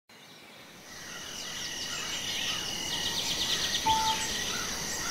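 Outdoor ambience of birds chirping and calling over a steady insect drone, fading in over the first second. A short whistled note sounds about four seconds in.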